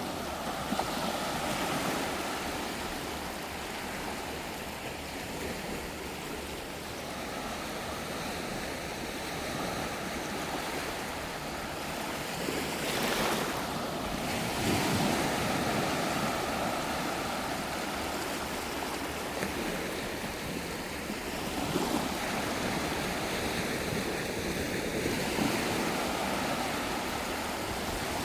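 Ocean waves breaking and washing up on a sandy beach in a continuous surf wash that swells and ebbs, loudest about halfway through. Some wind noise on the microphone.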